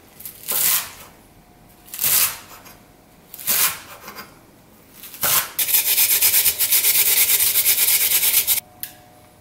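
Chef's knife slicing through a bunch of garlic chives onto a wooden cutting board, four strokes about a second and a half apart. Then half an onion rubbed fast on a plastic grater, a loud, steady rasping of about six strokes a second that stops suddenly near the end.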